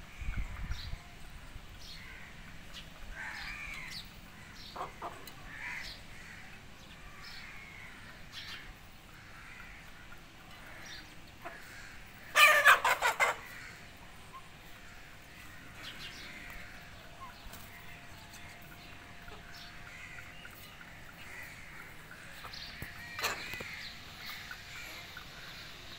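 Young chickens feeding at a clay bowl, calling softly over and over, with small sharp clicks of their beaks pecking the grain. About halfway through comes one loud, rapidly pulsing call lasting about a second.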